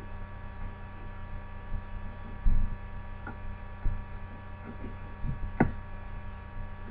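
Steady electrical mains hum with a buzz of its overtones. A low thump comes about two and a half seconds in, and a sharp click near the end.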